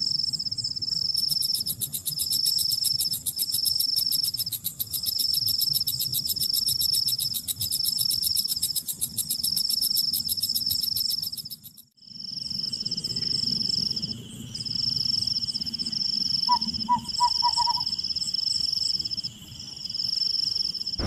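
Insects trilling in a high-pitched chorus, in repeated bursts about a second long with short gaps between them. After a brief break about halfway through, the trill carries on with a steady high whine beneath it, and a few short pips come near the end.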